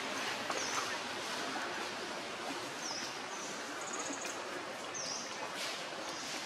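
Outdoor forest ambience: a steady hiss of background noise, with a bird giving a short high call three times, about every two seconds, and a brief rapid high trill about four seconds in.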